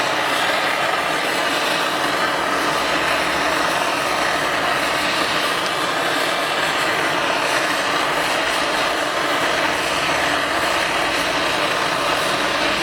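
Small MAPP-gas hand torch burning with a steady hissing rush as its flame heats a brake disc.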